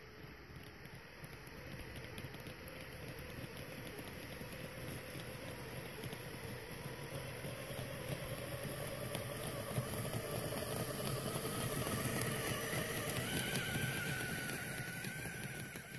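Electric motor and drivetrain of an Axial 1.9 Wraith RC crawler on snow tracks, whining as it crawls through snow. It grows louder as it comes up and passes close by, and its whine rises in pitch near the end.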